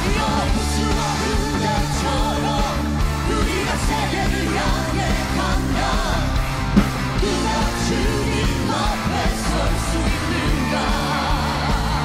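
Live praise song: a woman sings into a microphone over loud band accompaniment with a strong bass line.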